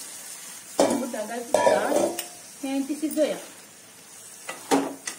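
Masala being scraped from a steel bowl into a hot pan of jackfruit, with a low sizzle underneath. The bowl clanks and scrapes against the pan several times, some strokes ringing briefly. Near the end the food is stirred.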